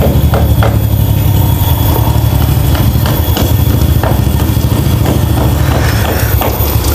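An engine running steadily at idle: a loud, unbroken low rumble with faint scattered ticks over it.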